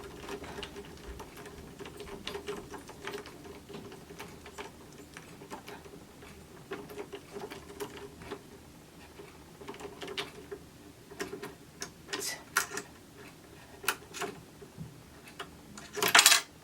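Scattered small metal clicks and taps from a Phillips screwdriver backing out the lower knife screw of a serger and the small parts being handled, with a short, louder clatter near the end.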